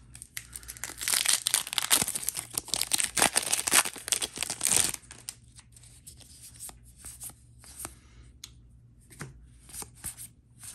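A Magic: The Gathering draft booster pack's foil wrapper torn open and crinkled for about four seconds. After that, light scattered clicks and rustles as the stack of cards is handled and slid through the hand.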